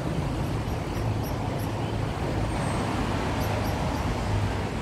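Wind buffeting the phone's microphone: a steady, uneven low rumble.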